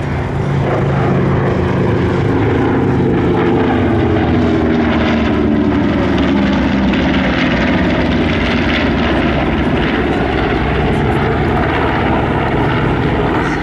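Several WWII piston-engined warbirds flying past together, a loud steady drone of their propeller engines, with the pitch sliding slowly lower as they go by.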